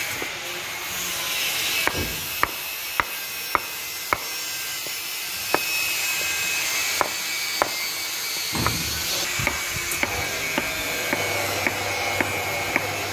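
Hammer striking a wooden block set on top of a copper-clad ground rod, driving the rod into the soil: a series of sharp knocks, about two a second at first, then more spaced and lighter toward the end.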